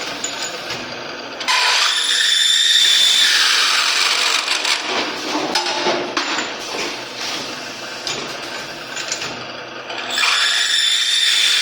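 Double-head tube chamfering machine cutting the ends of a metal tube: a loud, noisy machining sound with a steady high whine. It starts about a second and a half in, eases off near nine seconds and comes back loud about ten seconds in.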